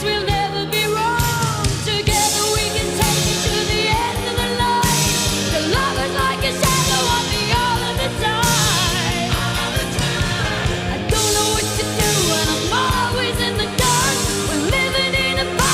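Background music: a rock song with a lead vocal over a steady beat.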